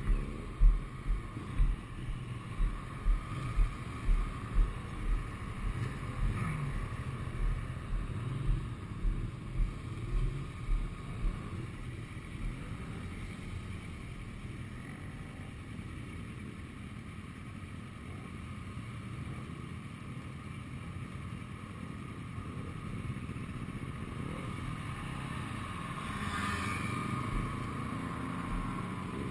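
Motorcycle engines running in moving traffic, picked up by a helmet-mounted camera. A run of low, regular thumps, about twice a second, fades out after about twelve seconds, and a motorcycle passes close near the end.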